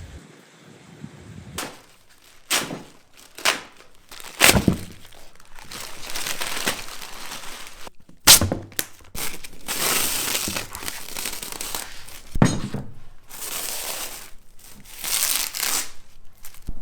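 Thin sheeting crinkling as it is handled and pulled off, with several sharp knocks and taps, the loudest just past eight seconds in.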